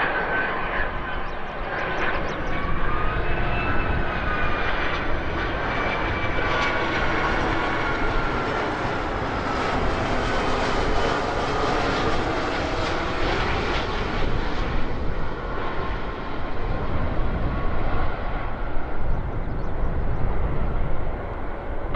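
Boeing 757-200 jet airliner's engines on final approach: a whine with a few high tones sliding down in pitch in the first seconds, a rushing roar at its strongest around the middle as it passes, easing into a lower rumble near the end.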